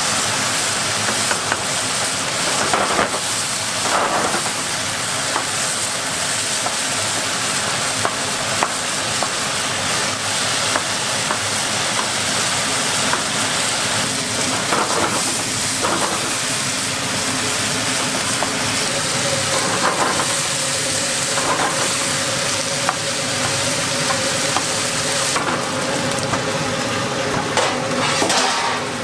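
Diced chicken sizzling as it fries in a nonstick pan, stirred with a wooden spoon, with a few short scrapes of the spoon against the pan.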